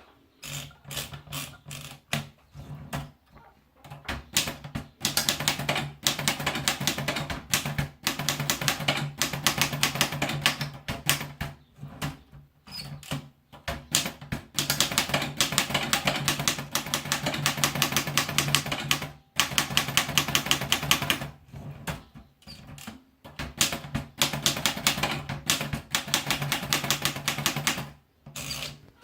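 Erika Model 10 portable manual typewriter being typed on: fast runs of key and typebar strikes in bursts of several seconds, broken by short pauses.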